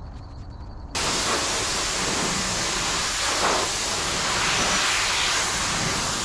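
Pressure washer spraying, a steady hiss of the high-pressure water jet that starts abruptly about a second in.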